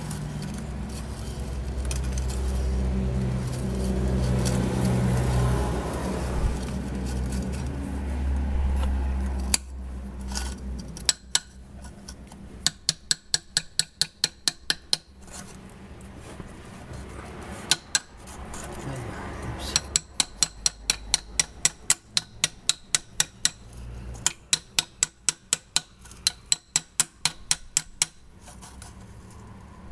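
Ratchet wrench on an extension clicking in quick runs of about four clicks a second as it undoes the nut of an exhaust clamp on a catalytic converter. A low steady hum comes first, for the first several seconds.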